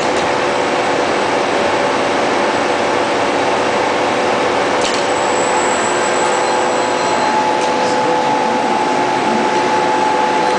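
CNC laser sail-cutting machine running: a steady, loud blower hiss with a few steady hum tones. A faint high whistle comes in for about two seconds near the middle, with a few light ticks.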